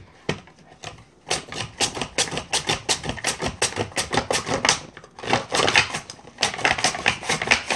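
Potato being pushed quickly back and forth across a Tupperware mandoline's crinkle-cut blade in its plastic food guard, making rapid rasping slicing strokes, several a second. The strokes start about a second in and pause briefly near the end.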